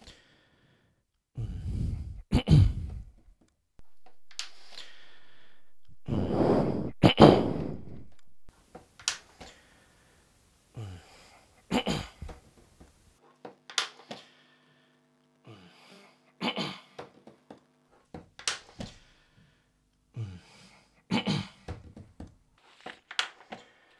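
Quiet room background noise heard through one microphone after another: a few soft knocks and breaths that repeat every few seconds. A steady hiss runs under it about a third of the way in, and a low steady hum just past the middle.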